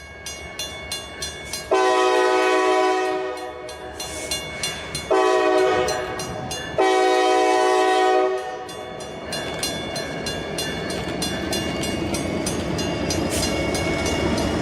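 Diesel locomotive air horn sounding three blasts, long, short and long, over the regular clickety-clack of wheels on rail joints. A steady rumble of the train running by follows.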